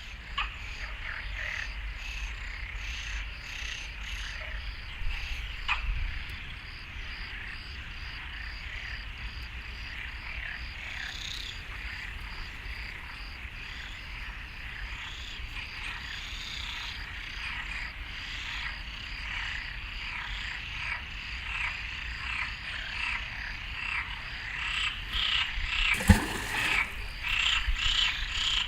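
A chorus of pond frogs calling, with many short, rapidly repeated croaking calls overlapping. About 26 seconds in, a single brief, loud sound cuts through the chorus.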